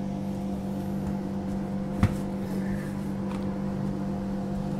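Steady multi-tone hum inside the carriage of a Transperth A-series electric multiple unit, over a low rumble, with one sharp knock about two seconds in.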